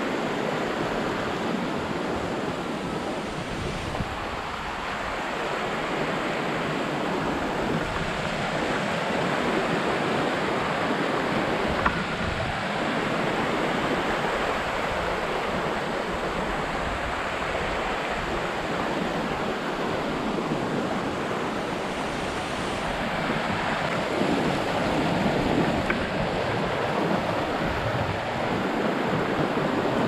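Steady rushing of a rocky mountain stream: an even wash of water noise with no rhythm or tones.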